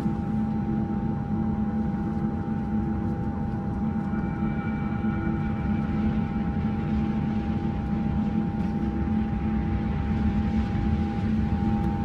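A steady, dense drone with a rumbling low end and several held tones over it, unchanging in loudness; a further higher tone joins near the end.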